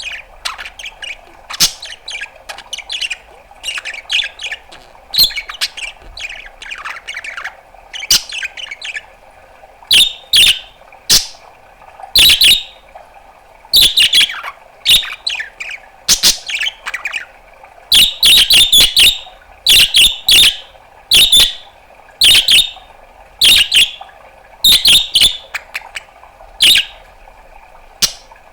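Pet budgerigar chattering: softer warbling chirps at first, then from about ten seconds in loud, sharp chirps and clicks in quick runs, several a second. A faint steady hum lies underneath.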